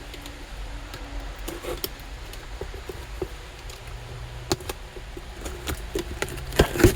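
Hand-unpacking of a shipping box: scattered clicks and knocks of packaging being handled, with sharper knocks about four and a half seconds in and near the end.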